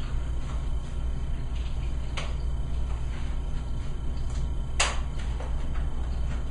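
Sharp clicks from handling a handheld chiropractic adjusting instrument: one about two seconds in and a louder one nearly five seconds in, with a few faint ticks between, over a steady low hum.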